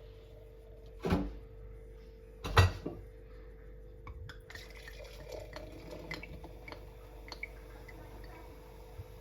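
Glass bottle and glassware knocking sharply twice, then liquid poured into a glass with a light trickle and many small crackling ticks, over a faint steady hum.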